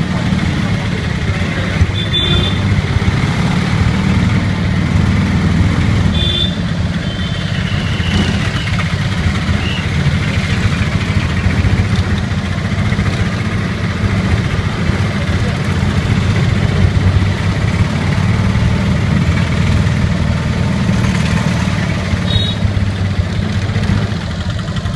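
Auto-rickshaw's small engine running steadily, heard from inside the open passenger cabin in slow street traffic. Short high beeps, typical of vehicle horns, sound about two, six and twenty-two seconds in.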